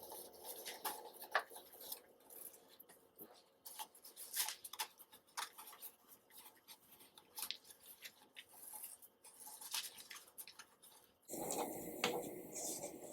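Loose bird seed rattling and clicking faintly as a peanut-butter-coated cardboard tube is rolled through it, in scattered small ticks.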